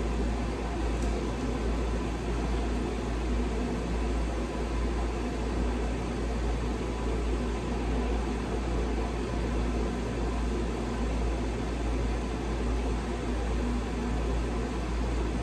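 A steady mechanical hum with an even hiss, unchanging in level.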